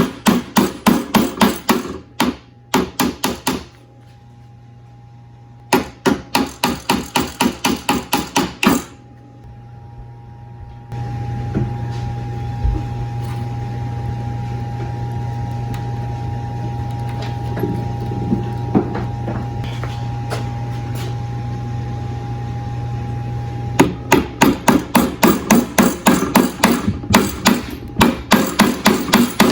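Rapid hammer blows in runs of a few seconds, about four or five strikes a second. In the middle a steady hum with a constant whine runs for about thirteen seconds, then the hammering resumes.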